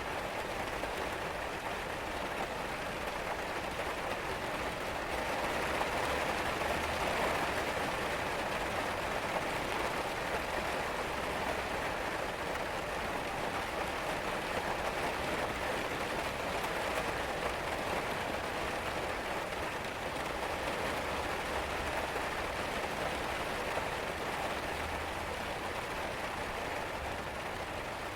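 Steady rain falling, an even hiss of drops that swells a little about six to eight seconds in.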